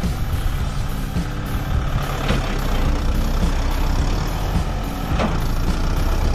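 Kubota MU5501's four-cylinder diesel engine running steadily under load as the tractor reverses a loaded sugarcane trolley. Two short sharp sounds come about two seconds and five seconds in.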